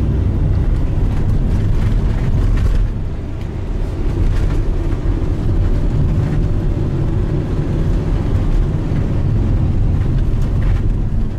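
Car driving, heard from inside the cabin: a steady low rumble of engine and tyres on the road. It eases briefly about three seconds in.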